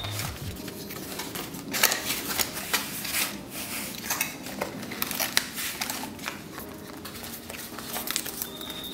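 Cardboard packaging being handled: a box slid out of its sleeve and opened, with paper and a plastic bag rustling, in irregular scrapes, taps and clicks.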